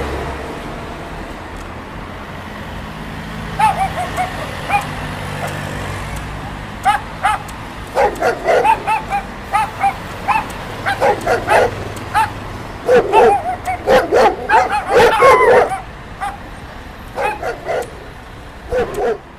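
Dogs barking and yipping in short repeated barks, starting a few seconds in, thickest through the middle and sparser toward the end.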